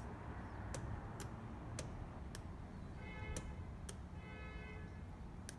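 Faulty, seized Bosch electric fuel pump from a 1983 Porsche 944, powered on a bench rig. It gives only a faint, irregular click-clunk about every half second instead of spinning and whirring, the sign of a compromised, seized pump.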